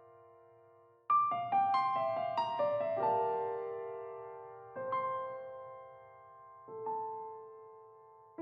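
Background piano music, slow and gentle. A held chord fades out, then about a second in comes a quick run of notes, followed by single chords every two seconds or so, each ringing away.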